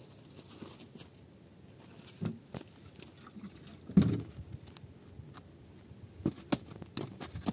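Sandals scuffing and slapping on packed dirt as a person steps into them and walks: scattered short knocks, with one louder thump about four seconds in.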